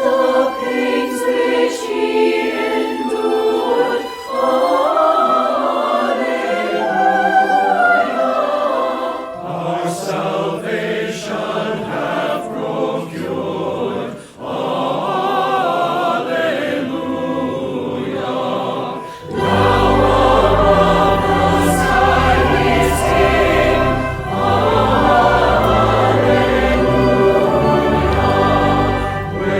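A choir singing a hymn with instrumental accompaniment; a fuller, deeper accompaniment comes in about two-thirds of the way through.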